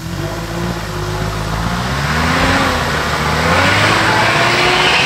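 Mitsubishi L200 pickup's engine revving hard under load as the truck claws out of a deep muddy rut, revs rising and falling, with the churn of tyres in the mud. It starts suddenly and grows louder over the first couple of seconds.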